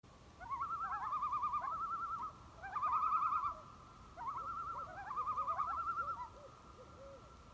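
Common loons calling: rapid, wavering tremolo calls in several bouts, with short rising and falling notes between them.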